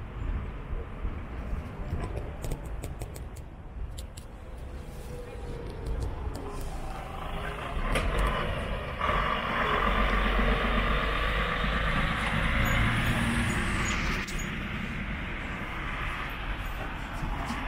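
Road traffic passing on a city street, a truck among the vehicles. It grows louder about eight seconds in and stays loudest until about fourteen seconds.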